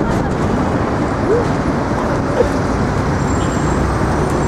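Steady noise of road traffic.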